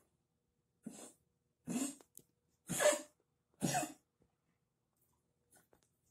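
A Shiba Inu coughing four times, about once a second, the first cough quieter and the next three harsh and louder. The cough comes from lymphoma that has spread to the dog's lungs.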